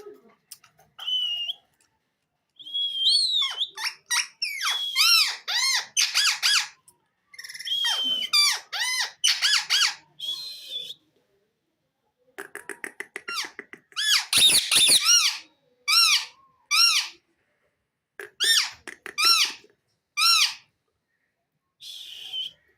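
Pet parrot calling: bursts of short, rapid squawks and chirps mixed with a few held whistled notes, separated by brief pauses.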